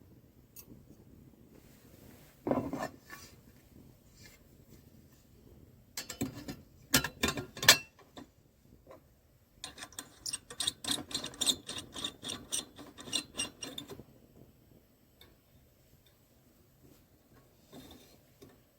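Intermittent handling noises: a knock about 2.5 s in, a run of sharp clicks and clinks around 6 to 8 s, then a busier stretch of clicking and scraping from about 10 to 14 s.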